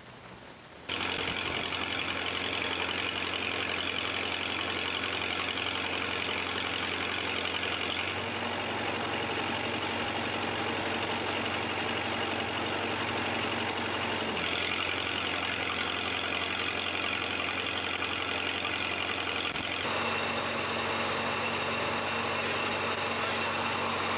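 Engine of a trailer-mounted engine-driven welder running steadily, suddenly louder about a second in, with a hissing crackle of an electric welding arc on steel pipe that comes and goes in stretches.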